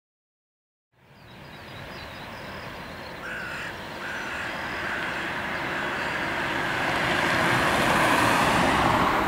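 Boeing 767-300ER airliner on final approach: its jet engines make a steady rushing rumble that grows louder as it nears, after about a second of silence. A few short bird calls, crow-like caws, are heard about three seconds in.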